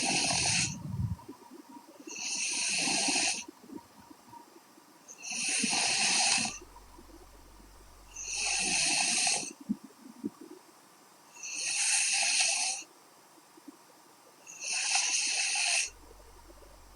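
A young woman snoring steadily in her sleep: six even, breathy snores, about one every three seconds.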